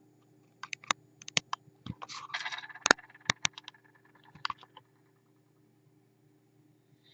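A run of sharp, irregular clicks and knocks, with a brief scraping rustle about two seconds in, over a steady low hum.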